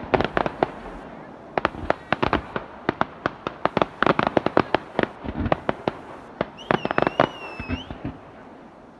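Fireworks crackling: many sharp, irregular pops from crackling stars, coming in dense clusters with short gaps between them.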